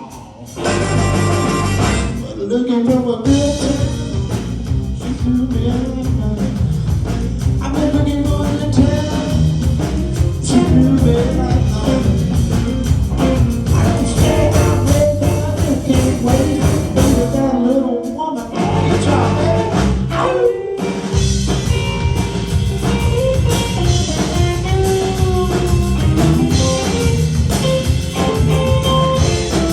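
Live blues band playing, with a few brief stops in the music.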